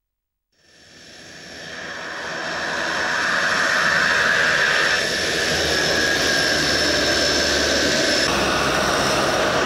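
The two turboprop engines of a de Havilland Canada DHC-6 Twin Otter running as it taxis past: a steady turbine whine with propeller noise. The sound starts about half a second in, grows louder over the next few seconds, then holds steady.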